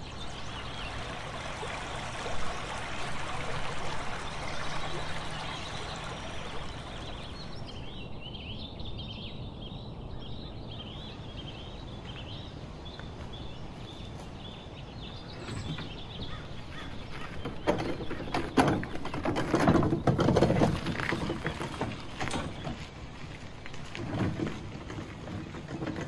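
Forest ambience with a bird calling in a fast repeated series, then footsteps and a wheelbarrow wheel crunching over a gravel driveway. The crunching is loudest about two-thirds of the way through.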